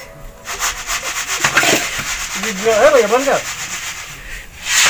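Sand and chickpeas rasping and scraping as they are worked by hand in a sand-roasting chickpea bhatti, a dense gritty sound. A short wavering voice sound is heard about three seconds in.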